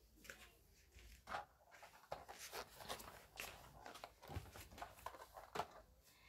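Near silence with faint, scattered soft clicks and rustles: a person moving close to the microphone while settling in.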